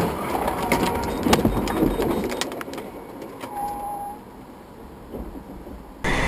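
Car and box truck colliding, recorded from inside a following car's cabin: a sudden crash followed by a clatter of impacts and crunching debris for about three seconds, then quieter road noise with a brief tone partway through. Near the end the sound switches abruptly to a louder steady hum.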